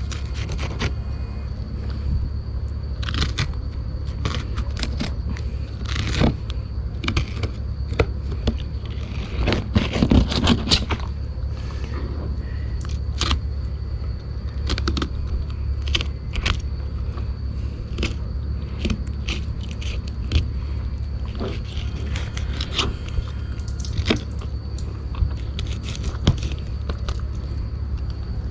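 A knife filleting a sheepshead: irregular scraping and crunching as the blade cuts through flesh and bone, with a steady low hum underneath.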